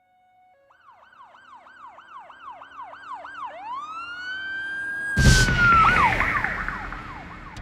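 Designed cinematic sound effect of a police-style siren: a fast yelp of about three sweeps a second that grows steadily louder, changing about three and a half seconds in to one slow rising and falling wail. About five seconds in, a sudden loud crash with a deep rumble cuts across it and slowly dies away as the siren drops in pitch.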